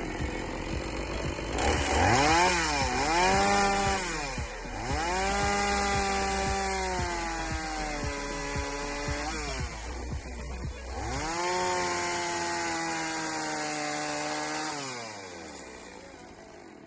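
Petrol chainsaw revving and cutting a wooden post to height. The engine note sags as the chain bites, picks up again in two long cuts, and winds down near the end. A low steady hum runs underneath until about two-thirds of the way through.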